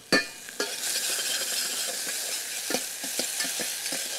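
Chopped onion frying and sizzling in olive oil in a stainless steel saucepan while a spoon stirs it, scraping and clicking against the pan, as the onion is being caramelized. A sharp metal knock just after the start.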